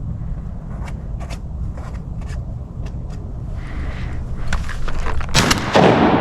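Low, steady rumble of a boat's motor, with scattered sharp clicks and knocks, then a sudden loud burst of noise about five seconds in.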